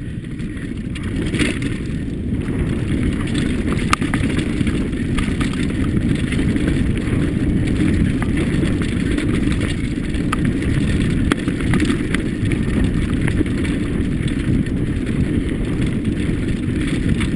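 Mountain bike riding fast down a rocky dirt trail: a steady low rumble of the tyres and wind on the helmet-camera microphone, with scattered small clicks and rattles from the bike.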